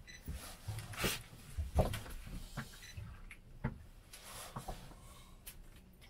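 Scattered knocks and clicks of fishing gear being handled on a small boat as a caught herring is brought aboard, with a few sharper knocks about 1, 2, 3.5 and 5.5 seconds in.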